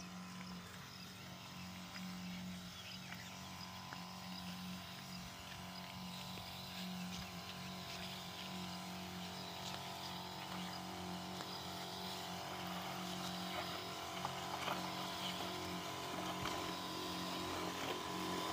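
Steady hum of a knapsack sprayer's small pump motor, pumping weedkiller spray, getting gradually louder toward the end.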